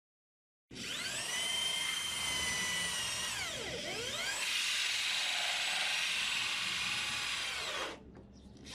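A vacuum cleaner's electric motor whining. It spins up, dips sharply in pitch and recovers about three seconds later, runs steadily, then winds down and cuts off near the end.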